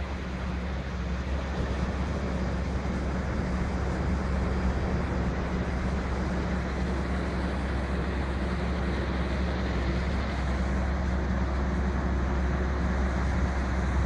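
Steady wash of breaking surf with wind rumbling on the microphone, a constant low drone underneath.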